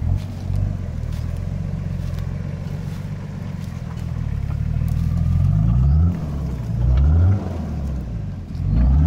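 Nissan Patrol Y60 4x4's engine running at low revs, then revved up in three short surges in the second half, as it pulls through off-road terrain.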